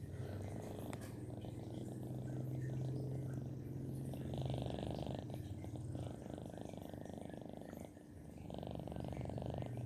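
Sleeping domestic cat purring with a low, steady rumble, in long breaths with a short break about eight seconds in.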